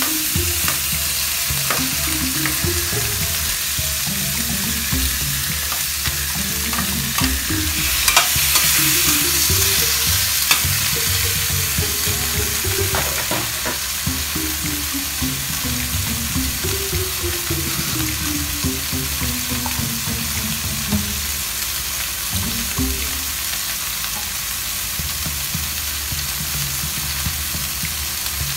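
Fish pieces and tomato wedges frying in oil in a wok, a steady sizzle that grows louder around eight seconds in. Quiet background music plays under it.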